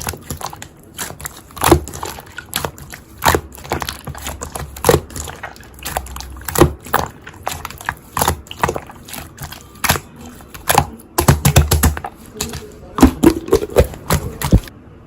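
Slime being squeezed and pressed by hand, making irregular wet clicks and pops, several a second, with quick flurries of pops near the end before it cuts off suddenly.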